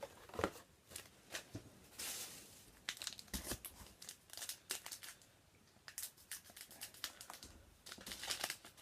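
Trading-card pack wrappers crinkling and tearing as the packs and cards are handled, a run of irregular rustles and clicks with a longer crackle about two seconds in.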